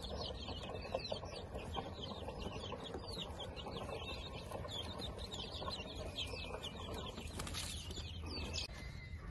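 A group of young chicks peeping, many short, high, falling peeps overlapping in a steady chorus.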